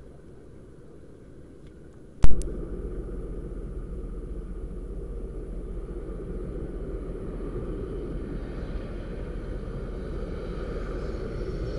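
A sharp click about two seconds in, then the steady low rumble of a Boeing 737 MAX 9's CFM LEAP-1B jet engines on final approach, growing slowly louder as the airliner draws nearer, with a rising hiss near the end.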